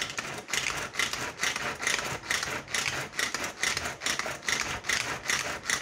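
Ganesh pull-cord vegetable chopper being worked by hand in quick repeated pulls, about three a second. Each pull spins the blades inside the plastic bowl, cutting onion pieces finer.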